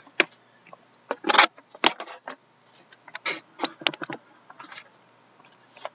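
Crinkling rustles and small clicks of a shrink-wrapped trading-card box being handled, in short irregular bursts, the loudest about a second and a half in.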